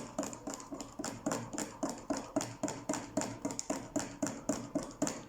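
A spoon stirring sauce mix in a cup of water, clinking against the cup about four times a second.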